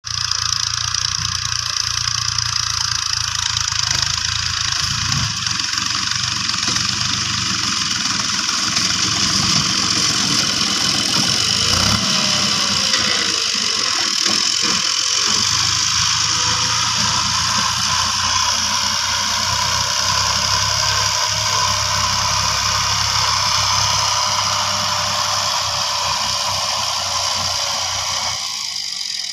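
Fiat 480 tractor's diesel engine running steadily under load as it pulls a seed-drill implement through tilled soil.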